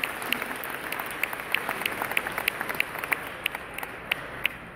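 Audience applause thinning out into scattered separate claps that fade away near the end.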